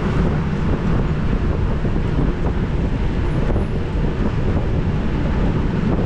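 Wind buffeting a GoPro action camera's microphone on a moving bicycle: a steady, deep rush with no breaks.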